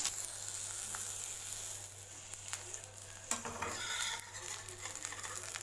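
An egg frying in hot oil in a black kadai, sizzling steadily. A metal spatula scrapes under it a little past the middle as it is lifted from the pan.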